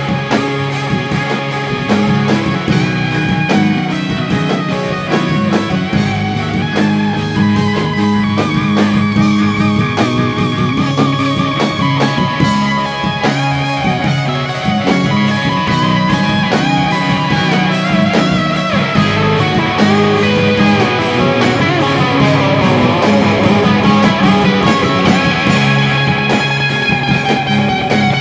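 Rock band playing an instrumental passage: an electric guitar carries a lead line with bent, wavering notes over bass guitar and drums.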